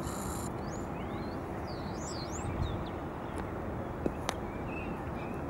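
Steady rumble of an airliner's jet engines at taxi power, with small birds chirping over it in the first half and two sharp clicks a little after four seconds in.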